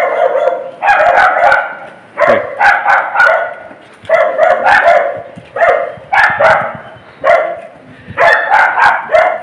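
A dog barking over and over, in short barks about one or two a second.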